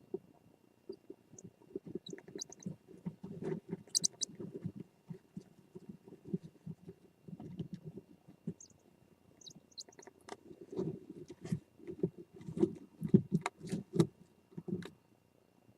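Scratching, shuffling and knocking from birds moving inside a Japanese scops owl nest box, with sharp taps about ten to fifteen seconds in and a few faint high squeaks.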